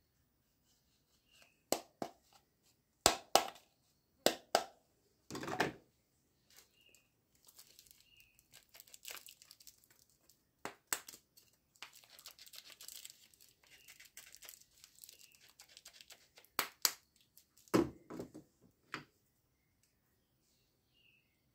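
Hard plastic toys handled by hand: a series of sharp clacks and knocks as they are picked up and set down, then several seconds of plastic wrapping crinkling, and more clacks near the end.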